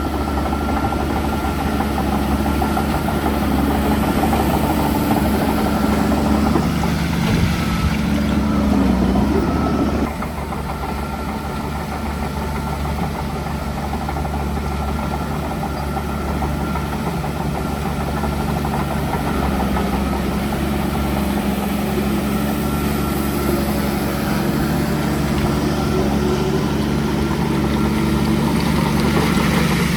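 Heavy diesel engine of construction machinery running, revving up with rising pitch from about seven seconds in and dropping back abruptly about ten seconds in, then running steadily.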